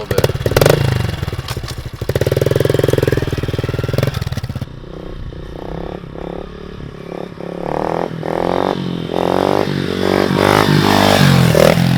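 A Honda CRF110F pit bike's single-cylinder four-stroke engine with a Yoshimura exhaust, running hard. About four and a half seconds in the sound changes abruptly, and the engine then revs up and down repeatedly.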